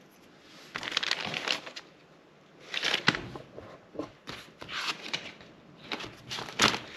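Paper notebooks being handled on a wooden tabletop: several short bursts of paper rustling.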